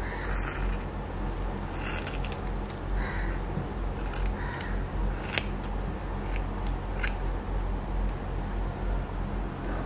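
Scissors snipping through hair again and again, with a few sharp clicks of the blades closing in the second half, over a steady low hum.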